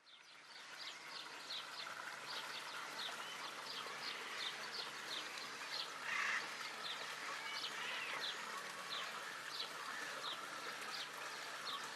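Bird-park ambience: small birds chirping in short high calls, a few a second, over a steady background hiss, with a brief harsher call about six seconds in.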